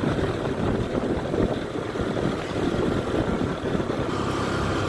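Honda ADV 150 scooter's single-cylinder engine running while the scooter is ridden, heard steadily under a low, uneven rumble of road and wind noise.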